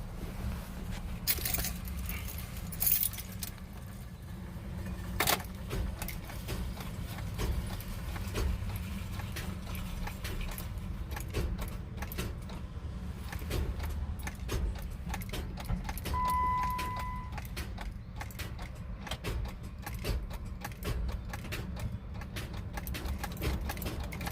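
A 2008 Jeep Wrangler JK clicking over and over as the ignition key is turned again and again without the engine cranking, with keys jangling. A short beep sounds about two-thirds of the way in. The clicking is the sign of a no-start fault that the owner has not yet traced, since the battery and starter check out.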